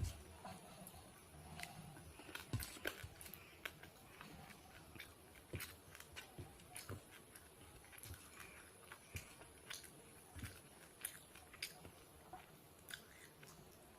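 A person chewing and eating a rice-and-curry meal close to the microphone: faint, irregular mouth clicks and smacks, a few each second.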